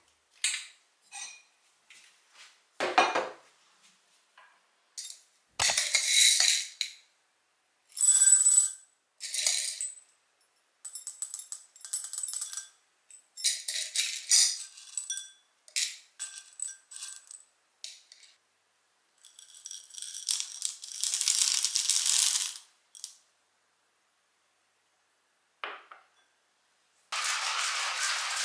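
Kitchen handling sounds while making coffee: a series of separate clinks and taps of glass and metal, and short rattles of coffee beans in a glass. Near the end a hand coffee grinder starts turning, a steady grinding of the beans.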